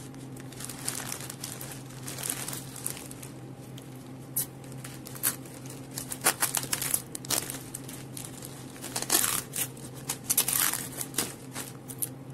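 Florist's wrapping paper crinkling and rustling as it is folded and pressed around a bouquet, with tape pulled off a roll; the crackly bursts come thicker in the second half. A steady low hum runs underneath.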